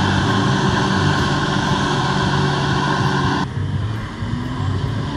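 Jet ski engine running at high throttle to pump water up to a flyboard, with a loud rushing hiss over a steady low engine note; about three and a half seconds in the throttle is cut and it drops to a quieter running note as the rider comes down.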